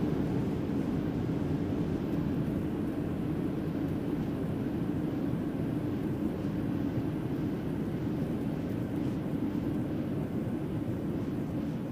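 Cabin noise of a Boeing 737 slowing on the runway after landing: the steady rumble of the jet engines and the airframe, heard through the cabin wall. It grows gradually quieter toward the end as the plane decelerates.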